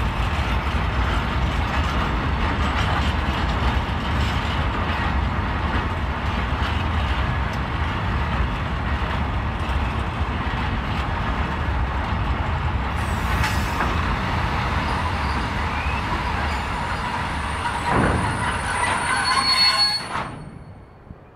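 Freight train of bogie hopper wagons rolling past with a steady rumble of wheels on rail, with brief high wheel squeal about two-thirds of the way in. Wheel and brake squeal rises near the end, then the noise drops away sharply as the train comes to a halt.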